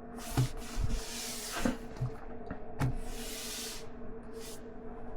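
Handling noise: two hissing rustles about a second long and a shorter one near the end, with a few light knocks as the small RC crawler is handled.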